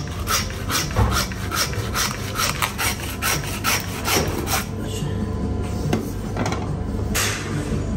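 Butcher's hand bone saw cutting through a beef leg bone in quick back-and-forth strokes, about three a second. The steady sawing breaks off a little past halfway, followed by a few single scrapes.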